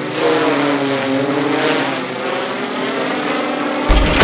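Quadcopter drone's rotors humming, the pitch gently swaying up and down as it flies. Near the end there is a sudden low thud with a few clicks as it sets down.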